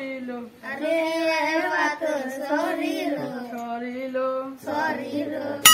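A child's high voice singing a slow, sing-song melody in long held notes with short breaks. A loud warbling tone cuts in at the very end.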